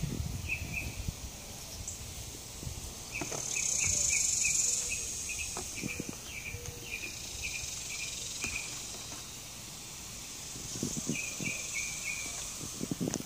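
Outdoor insect ambience: a high, steady insect buzz that swells louder twice, with a run of short high chirps repeating about three times a second, and scattered low thumps and rumble of handling on the microphone.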